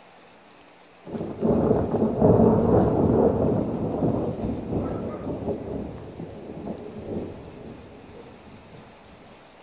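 Thunder: starts suddenly about a second in, rumbles loudest for the next two or three seconds, then fades slowly over several seconds.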